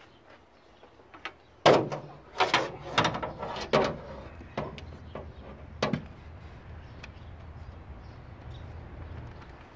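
Hard knocks and clatter of parts being worked by hand on a Toyota TRD supercharger and its fittings on the engine. There are about eight sharp knocks over a few seconds, the loudest about a second and a half in, over a low steady rumble.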